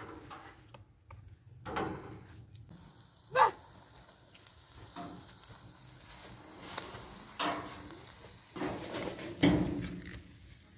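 Fish grilling over charcoal in a wire basket, with a faint sizzle and crackle. A few short, sharp knocks or clatters cut through it, the loudest about three and a half seconds in and again near the end.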